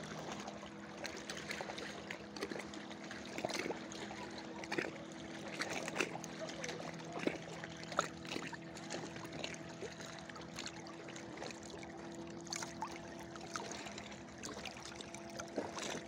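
Small sea waves lapping and splashing around a camera held at the water's surface, with irregular little splashes and drips, over a steady faint hum.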